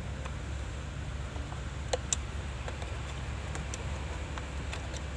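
A few short, sharp clicks and taps of hand work on the horn switch's ground wiring, the loudest two about two seconds in, over a steady low hum.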